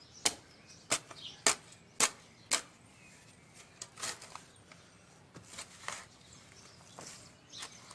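Wood being chopped: five sharp strikes about two a second, then fainter scattered knocks and rustling for the rest of the time.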